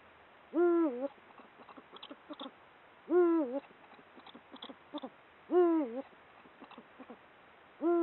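Male Eurasian eagle owl hooting in the breeding season, a deep territorial call. There are three calls about two and a half seconds apart, and a fourth begins near the end. Each call lasts about half a second and rises in pitch, then falls.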